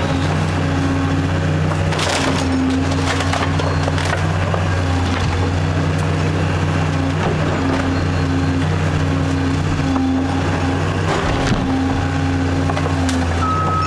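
A heavy demolition machine's engine running steadily while a wooden house is torn down, with wood cracking, crunching and splintering several times.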